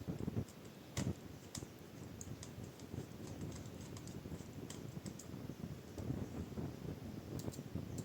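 Scattered light clicks over a low rustle of small laptop parts being handled by hand while the old hard drive is being detached from its bay.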